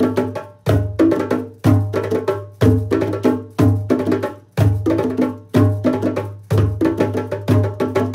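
Hand-drum ensemble of two djembes and a pair of congas playing a steady groove: a deep bass stroke about once a second, with quick sharp slaps and open tones filling the beats between.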